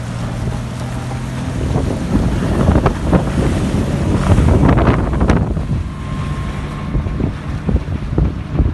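60 hp Suzuki outboard motor running a boat on the water, its steady hum joined about two seconds in by wind buffeting the microphone and water splashing, which are loudest around the middle.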